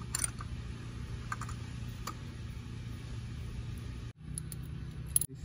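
Scattered light metallic clicks of a long spark-plug socket and extension being turned by hand to tighten a new spark plug, over a steady low hum; the loudest click comes near the end.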